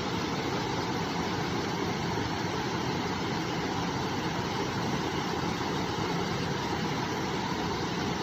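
A river's water rushing steadily, with no let-up.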